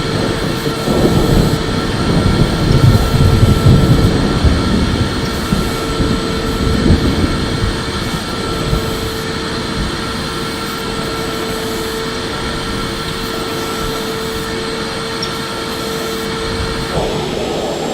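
Electric vacuum cleaner running steadily: a constant motor whine over a broad rushing hiss of air, with louder, uneven low rumbling through the first half that then settles.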